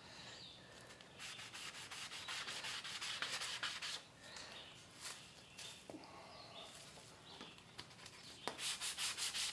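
Hand sanding the epoxy on a wooden paddle tip with a fine-grit abrasive: scratchy back-and-forth strokes. They turn into a fast, even rhythm of about three strokes a second near the end.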